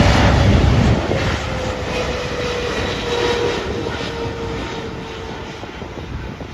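Air Canada jet airliner passing low overhead. Its heavy rumble drops off about a second in, and the engine whine then sinks slightly in pitch and fades as the plane moves away.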